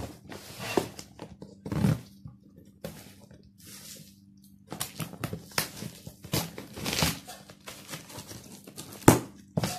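Cardboard box being slit open with a ballpoint pen: irregular scratching and tearing as the pen punctures and drags through the packing tape and the cardboard flaps pull apart, with a sharp click near the end.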